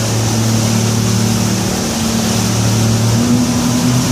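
Twin Yamaha 250 four-stroke outboards running at speed with the boat on plane: a steady engine drone over a rush of wind and water. About three seconds in, the engine note steps up a little and the lower hum starts to throb as the throttles open toward a wide-open run.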